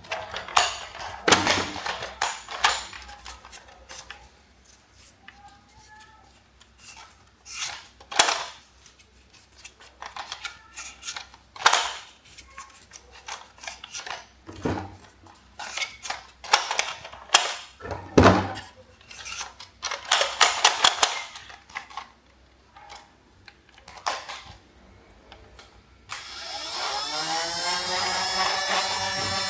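Irregular clicks, knocks and snaps of plastic toys being handled. About 26 seconds in, a loud electronic sound with sweeping, wavering pitch starts and holds.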